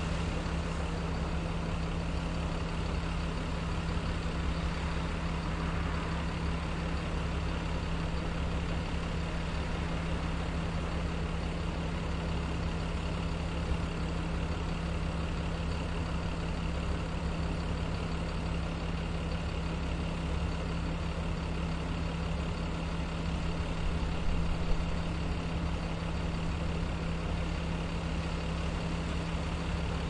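Bus terminal ambience dominated by a bus's engine idling: a steady low hum and rumble. There is a brief louder moment about 25 seconds in.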